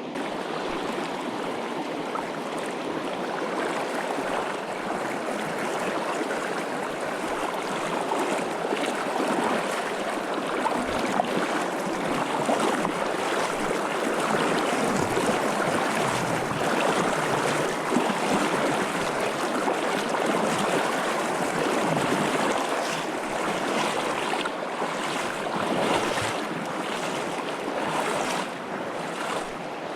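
A fast, cold mountain river rushing steadily over its bed, a continuous loud water noise.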